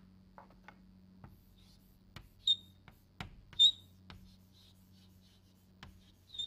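Chalk writing on a blackboard: scattered taps and scratches of the chalk, with three short high squeaks, about two and a half seconds in, a second later (the loudest), and near the end. A faint steady low hum lies underneath.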